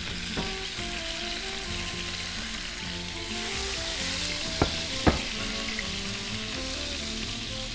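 Chicken pieces sizzling steadily in olive oil in a frying pan as they are turned with tongs. Two sharp clicks of the tongs against the pan come a little past halfway.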